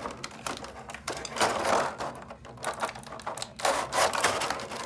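Clear plastic blister packaging crackling and clicking as hands flex and pull at the tray to free the accessories, in irregular bursts of crinkles, loudest about a second and a half in and again near the end.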